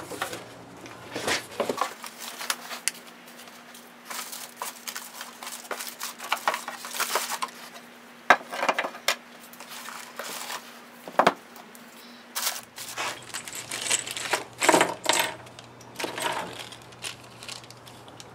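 Unpacking an instrument kit by hand: irregular rustling of plastic bags, paper and cardboard, with small metal parts clicking and clinking as they are set down on a wooden workbench.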